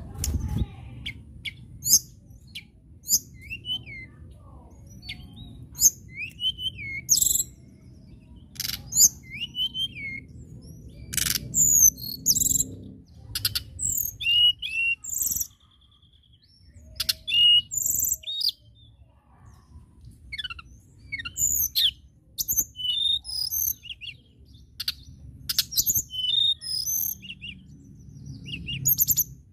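Male blue flycatcher (tledekan) singing: quick phrases of short, high whistles and sweeping notes, with a brief lull about halfway. A low thump at the very start, over a steady low background rumble.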